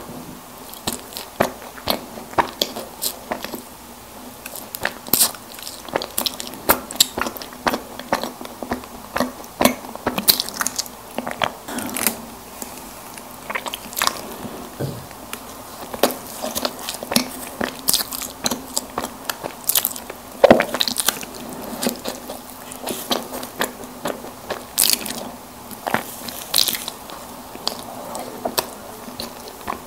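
Close-miked eating of chocolate-coated snack cakes: soft bites and chewing with many small, sharp, irregular crackles and clicks.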